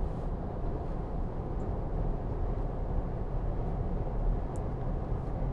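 Steady cabin noise of a 2009 Range Rover 3.6 TDV8 turbo-diesel V8 cruising at about 70 mph on cruise control: a low, even rumble of engine and road, the engine turning under 2,000 rpm.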